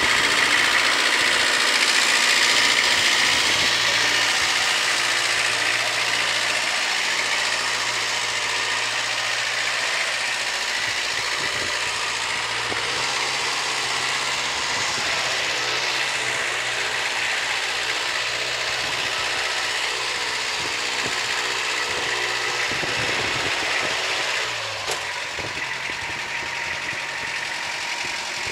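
Mini tractor's engine running steadily as it drives slowly, its level stepping down about 25 seconds in.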